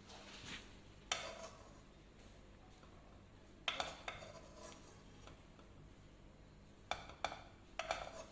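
Metal spoon clinking against dishes while filling is scooped out: short, separate clinks with a brief ring, one about a second in, a couple around the middle, and three close together near the end.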